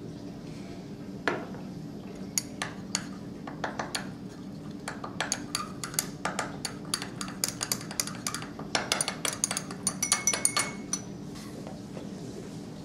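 Glass stirring rod clinking against the inside of a small glass beaker as calcium oxide (quicklime) is stirred and crushed in a little water. The clinks come in a rapid, irregular run and stop about two seconds before the end.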